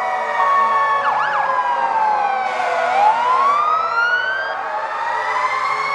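Several fire apparatus sirens sounding at once. Their overlapping wails slowly fall and rise, with a quick warble of up-and-down sweeps about a second in.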